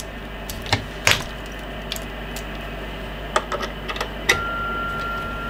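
Small sharp clicks, spaced unevenly, as coaxial attenuators and connectors are handled and screwed together, over a steady hiss. About four seconds in, after one last click, a steady high beat tone comes back on the Icom IC-201 transceiver's speaker as the test signal reaches the receiver again through the 10 dB attenuator.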